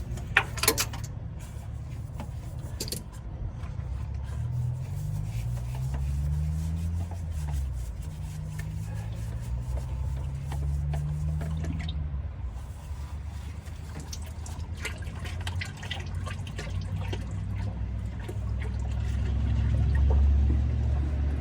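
Engine oil pouring and dripping out of a diesel oil filter into a drain pan as the filter is spun off, over a steady low rumble that rises and falls slowly in pitch in the middle.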